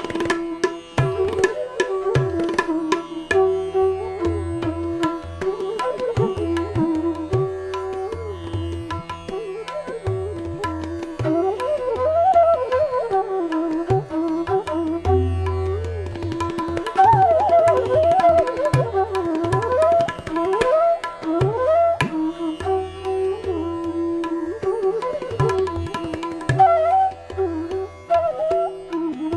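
Indian classical instrumental music: a gliding melody line over a steady drone, with tabla strokes underneath.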